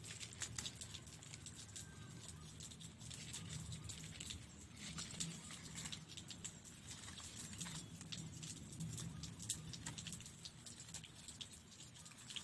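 Irregular light clicks and crackles of fence strips being handled and woven in by hand, over a faint low hum.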